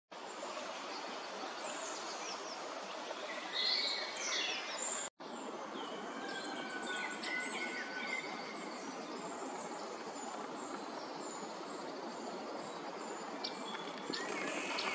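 Outdoor pond ambience: a steady background hiss with many short bird chirps and calls scattered through it. Near the end it grows louder with a rushing splash as the female mallard flaps her wings on the water.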